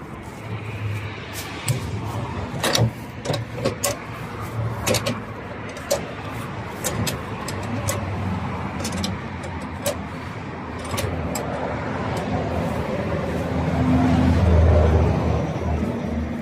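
A motor vehicle's engine runs as a low steady hum that grows louder and peaks about fourteen seconds in. Over it come scattered sharp clicks and knocks from a hinged metal tortilla press being worked, with masa pressed between plastic sheets.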